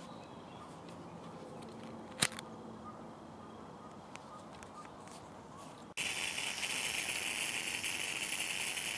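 A small screw-cap keyring lighter struck once, a sharp click about two seconds in. Then, from about six seconds, the steady hiss of a Coleman 533 pressurised liquid-fuel stove's burner as it is lit.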